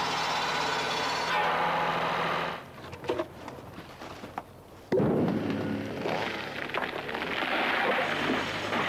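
Tractor-driven circular saw bench running, its blade cutting through a log over the engine hum. It stops about two and a half seconds in, giving way to a few sharp knocks of logs. About five seconds in a sudden louder sound starts, a rush of noise that builds as a felled tree comes down through its branches.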